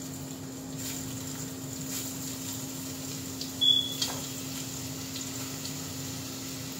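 Grated carrot being scraped off a metal tray with a spatula into a steel bowl of hot oil, with one short metallic clink about three and a half seconds in, over a steady low hum.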